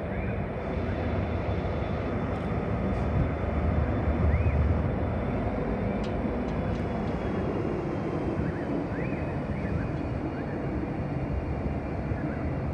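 SCT class diesel-electric freight locomotive idling at a stand, a steady low rumble that swells slightly around four seconds in. Short high chirps sound over it a few times.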